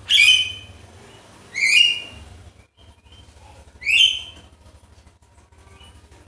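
Javan myna giving three loud, short rising calls about two seconds apart, then falling quiet for the last couple of seconds. A faint steady low hum runs underneath.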